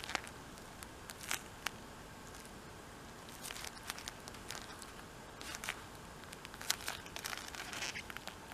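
Handling noise: leather-gloved hands gripping and turning a pair of binoculars, giving irregular crinkling clicks and creaks, thickest in the second half.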